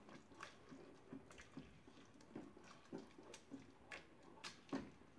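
Faint, irregular scraping and light knocks of a spatula stirring wet, seasoned rice in a pot, a dozen or so small strokes with the loudest near the end.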